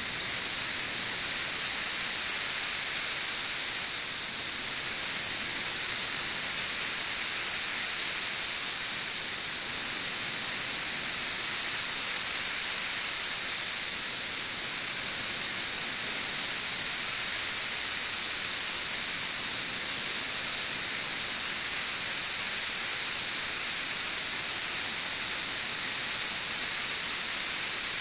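Chorus of 17-year periodical cicadas (Brood XIV), a massed swarm singing as one loud, steady, high-pitched hiss that sounds like static.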